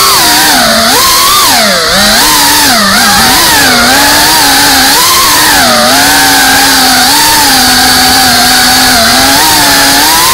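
FPV quadcopter's motors and propellers buzzing loudly, close to the onboard camera, the pitch rising and falling constantly as the throttle changes.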